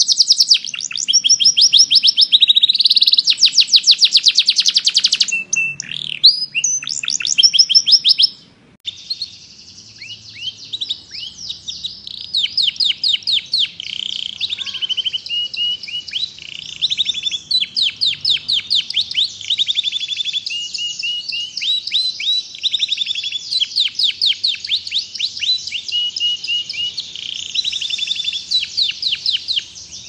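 Domestic canaries singing: long runs of fast trills made of rapidly repeated high notes, broken by sweeping notes and short changes of tempo. About nine seconds in the song breaks off and a second canary takes over, singing a little quieter.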